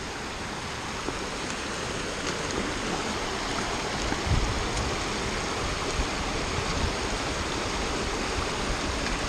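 Small rocky mountain stream running shallow over stones, a steady rush of water. A low thump comes about four seconds in, with a few light clicks scattered through.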